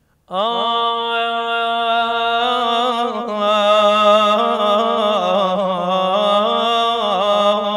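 A man's unaccompanied voice chanting a Shia na'i mourning lament: one long melismatic line that starts about a third of a second in and is held to the end, bending and wavering in pitch.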